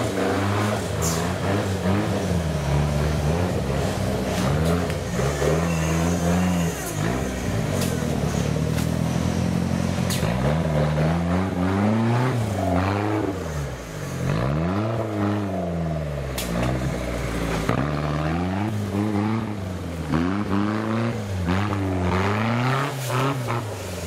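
Off-road competition 4x4 truck's engine revving up and down again and again as it claws up a steep muddy slope, with scattered sharp knocks and clatter.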